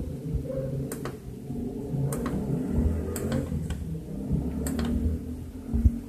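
Pitsos Vario 5 washing machine running: an uneven low hum and rumble from the drum and motor, with a few sharp clicks and knocks scattered through.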